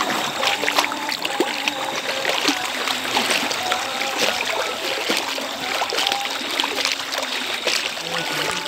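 Continuous sloshing and splashing of deep floodwater as several people wade through it, legs pushing through the water in a steady run of short splashes.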